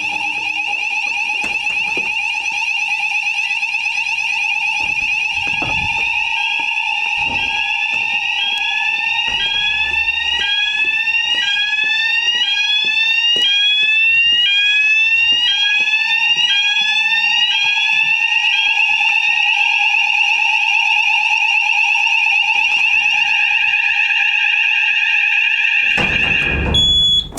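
Building fire alarm sounders set off from a manual call point for a weekly test: several steady tones at different pitches, joined for a long stretch by a tone sweeping upward about once a second. The whole alarm cuts off suddenly near the end when it is reset.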